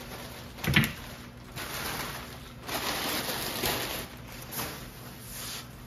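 Plastic packaging rustling and crinkling as wrapped packs of meat are picked up and sorted, in several stretches, with one sharp thump, the loudest sound, a little under a second in, as a pack is set down.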